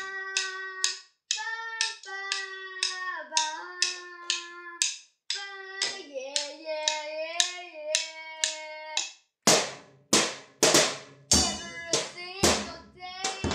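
Live rock band music: held, bending notes over a fast ticking beat, with heavier drum hits joining about nine seconds in.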